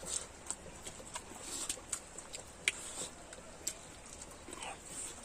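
Chewing and mouth noises of people eating boiled pork intestine, with scattered sharp clicks; the loudest click comes a little under three seconds in.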